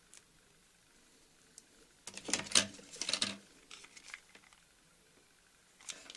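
Hands handling a foamiran strip with wire attached: a bunch of short crackling, rustling handling noises about two seconds in, a few faint ticks after, and more rustling near the end.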